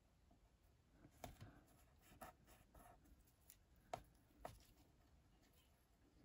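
Faint handling of card and double-sided tape as it is pressed in place: a few light, soft ticks and rustles, scattered a second or so apart.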